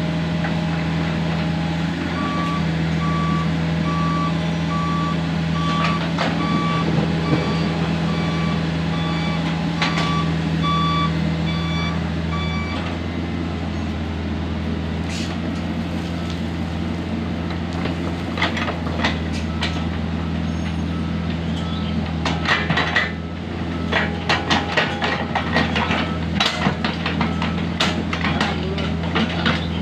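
Komatsu PC45 mini excavator's diesel engine running steadily under work, with an alarm beeping regularly, a little more than once a second, for about ten seconds. In the second half, frequent sharp clanks and knocks join the engine.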